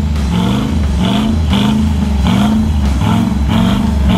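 A 4x4's engine revving in repeated surges, the pitch rising and falling every half second or so as the throttle is worked.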